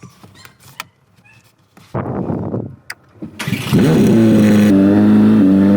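Ferrari V8 being started: a brief crank from the starter about two seconds in, then the engine catches with a rising flare and settles into a loud, steady fast idle.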